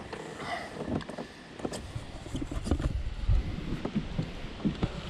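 Irregular knocks and bumps of handling in a plastic kayak, with wind buffeting the microphone and a low rumble about three seconds in.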